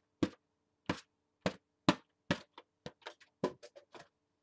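An inflatable pineapple balloon whacked again and again against a sketchbook page, dabbing on paint: about a dozen sharp slaps, coming faster in the second half.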